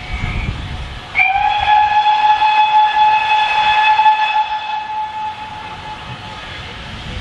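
Steam locomotive whistle: one long steady blast starting about a second in, lasting about four seconds and then fading, the driver's signal as the train starts away. A shorter, higher whistle note dies away at the very start.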